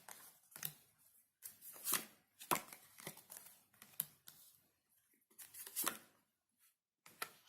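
Tarot cards being handled and laid out on a table: a series of short, irregular swishes and taps.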